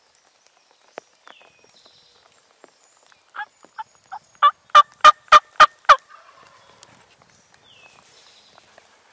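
Turkey yelping: a series of about nine sharp notes, starting about three seconds in, growing louder and slightly quicker over roughly three seconds, then trailing off in a brief rasp.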